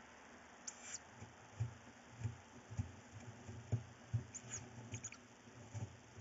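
Tawny owl chicks scuffling in a wooden nest box as they fight over prey: a run of irregular dull thumps and scratching, with short high squeaks about a second in and again around four and a half seconds in.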